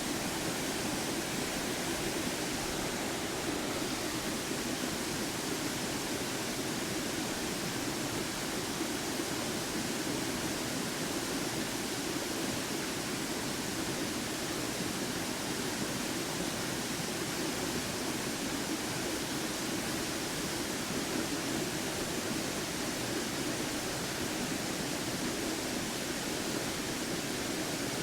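Waterfall: water falling and splashing in a steady, unbroken rush with a low rumble in it.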